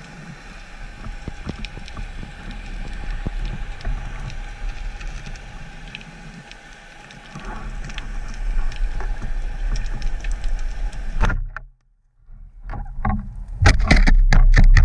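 Underwater sound through a camera housing mounted on a speargun: a steady hiss with scattered faint clicks. About eleven seconds in it cuts to near silence for about a second, then loud irregular rushing and knocking of water against the housing as the gun swings quickly.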